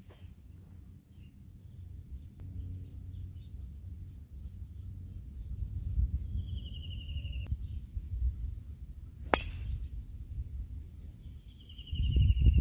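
Golf driver striking a teed ball: a single sharp crack about nine seconds in. Under it runs a low rumble of wind on the microphone, and birds chirp in short descending trills.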